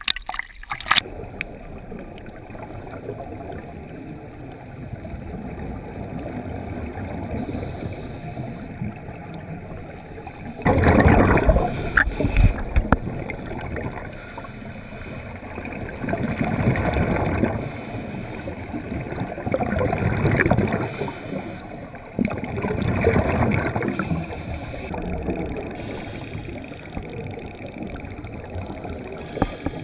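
Muffled underwater sound picked up through a sealed camera housing, with the rush of scuba regulator exhaust bubbles rising in surges every few seconds as a diver breathes out.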